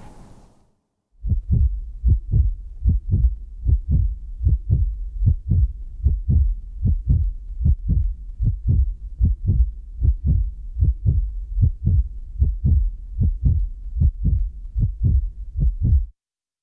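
Heartbeat sound effect: low, even thuds about two to three a second, starting about a second in after a short silence and stopping abruptly just before the end.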